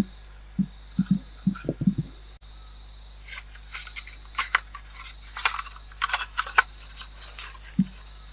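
A machete striking and shaving a green bamboo stake: about six short dull knocks over two seconds. Then irregular crackling, crunching rustles of dry leaf litter and bamboo stakes being handled and walked over, with one low thump near the end.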